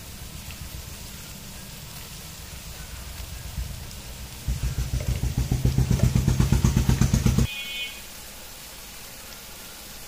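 A small engine running with a steady pulsing beat, much louder for about three seconds from the middle on, then cutting off sharply, with a brief high beep just after.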